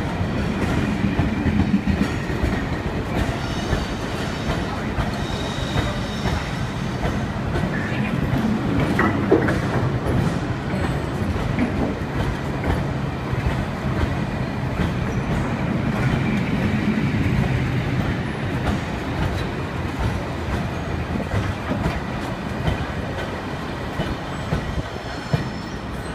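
Long freight train of loaded open box wagons rolling past along a station platform: a steady, loud rumble of wagon wheels on the rails, easing a little near the end as the last wagon passes.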